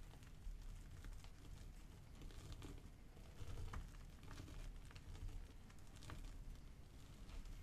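Powdery crushed gym chalk being squeezed and crumbled between the hands: a faint, continuous run of soft, dry crunching and small crackles.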